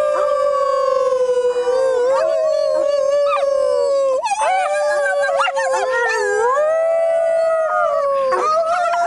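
Coyote howling in long, slowly gliding notes, breaking into a run of quick, wavering notes about four seconds in before settling back into the long howl.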